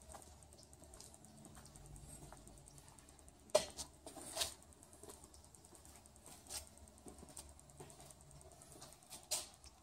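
A few faint, irregular taps and knocks from the person filming moving about, over a quiet low background. The sharpest tap comes about three and a half seconds in, with others around four and a half seconds, six and a half seconds and near the end.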